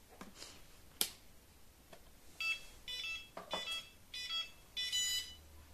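A sharp click about a second in, then five short electronic beeps over the next three seconds, each several tones sounding together, from the drone's electronics while the quadcopter's motors will not unlock (arm).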